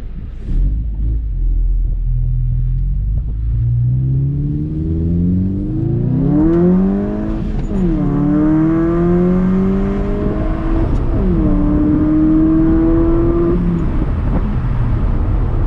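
A VW MK6 Jetta GLI's catless turbocharged four-cylinder pulling hard: the engine note climbs through the revs, drops at two upshifts and climbs again after each. Near the end the throttle eases off, leaving the low rumble of the car underway.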